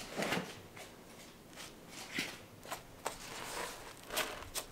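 Knife work skinning an elk: a handful of short, irregular scrapes and rips as the hide is cut and pulled away from the carcass.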